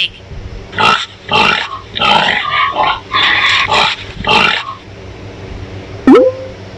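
A pig squealing and grunting in a run of about five short, loud bursts. Near the end comes a single brief rising tone.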